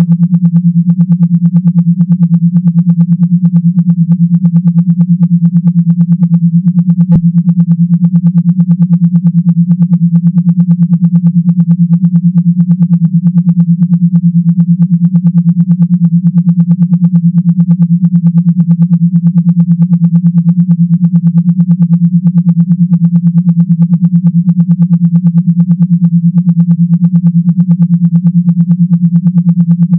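Low electronic buzz tone, rapidly and evenly pulsing without a break: a vibration sound made to shake water out of phone speakers. A single click about seven seconds in.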